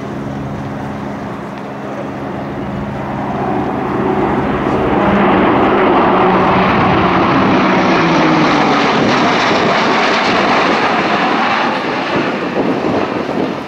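Airbus A400M's four Europrop TP400-D6 turboprops, with their eight-bladed propellers, on a high-speed pass close overhead. The propeller drone grows louder and is loudest around the middle, where its pitch falls as the aircraft goes by, then eases as it climbs away.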